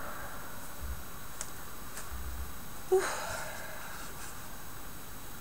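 Faint rustling of lace trim and tissue wrapping being handled and pulled from a parcel, with a few small ticks and one short, louder sound about three seconds in.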